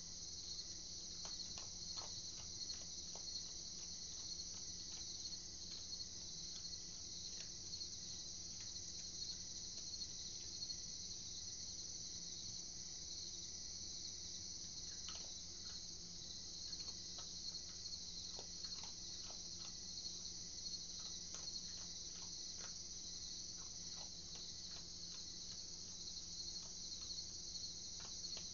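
Crickets chirping in a steady, continuous night chorus, with scattered soft clicks throughout.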